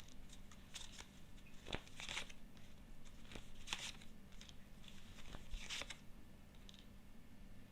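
Faint, intermittent rustling and soft clicks of tarot cards being handled and laid out, with one sharper click about two seconds in.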